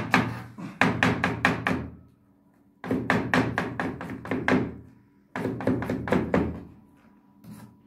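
Kitchen knife chopping a vegetable fast on a plastic cutting board, about five strokes a second, in three runs broken by short pauses.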